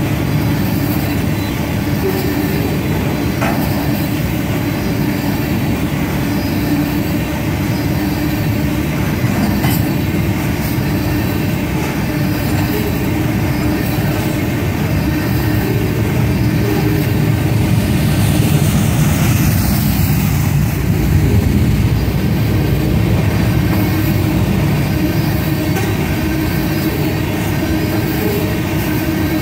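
Loaded tank cars of a unit crude-oil train rolling past at speed: a steady, loud rumble and rattle of steel wheels on the rails, with a steady tone running through it.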